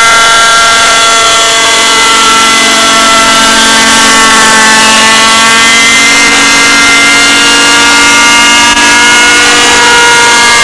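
Thunder Tiger Raptor 30 RC helicopter in flight: its .30 two-stroke glow engine and rotor running loud and steady, a high whine whose pitch drifts gently up and down.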